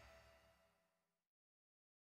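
Near silence: the last faint tail of the background music dies away within about the first second, then total silence.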